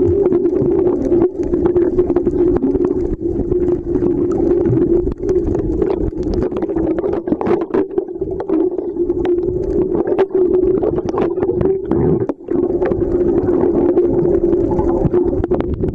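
Underwater sound picked up by a submerged camera: a steady low drone with many scattered sharp clicks and crackles over it.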